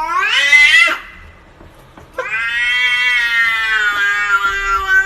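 Domestic cat giving long, drawn-out meows. The first ends with a rising pitch just under a second in. A second, longer yowl starts about two seconds in and slowly falls in pitch.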